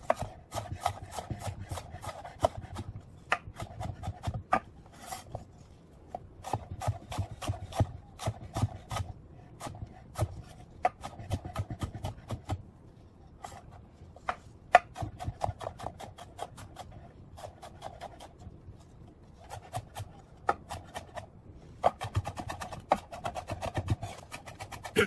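Chef's knife chopping white onion on a wooden cutting board: runs of quick knife taps on the board with short pauses, getting faster and denser near the end as the onion is minced.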